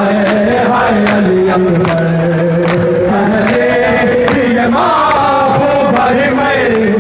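Men chanting together with rhythmic chest-beating: a sharp slap of hands on chests about every 0.8 s under the sustained group chant. The slaps thin out in the second half.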